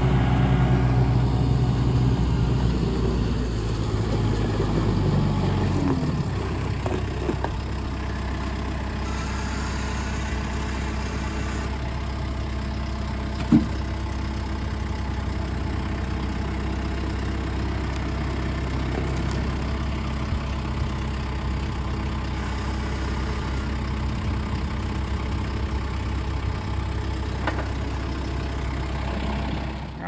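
Kubota compact tractor's diesel engine running steadily, a little harder for the first six seconds, then settling to an even idle. One sharp knock about 13 seconds in.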